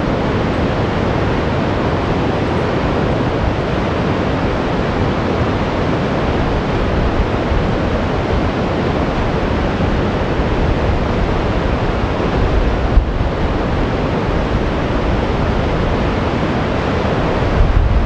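Flood-swollen class 5 rapids on the James River at high water: a loud, steady rush of churning whitewater, deepest in the low end, with one brief knock about two-thirds of the way through.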